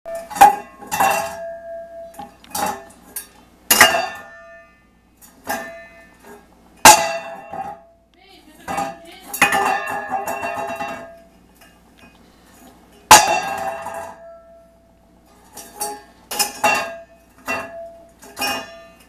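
Stainless steel pet bowl clanging and rattling on a wooden floor as a pet rabbit tosses and shoves it about. About a dozen irregular sharp clangs, several left ringing, with a longer rattle about halfway through.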